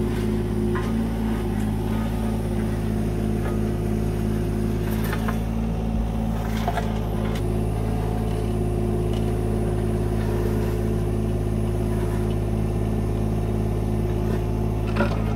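A Yanmar 2-ton mini excavator's diesel engine runs steadily while its steel bucket digs into gravel. A few short knocks and scrapes of the bucket on stones come through, one about five seconds in, one a little later, and one near the end.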